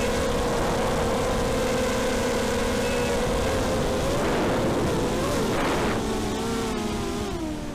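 ZMR250 quadcopter's brushless motors and propellers whining in flight over a constant rush of air. The pitch holds steady for about four seconds, then rises and falls with throttle changes and drops near the end.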